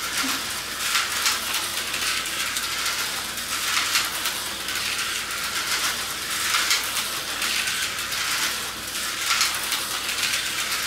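Tyco HO slot cars lapping a plastic track: a steady high, buzzing rattle of the small electric motors and cars on the track, with brief swells every second or two as the cars pass close.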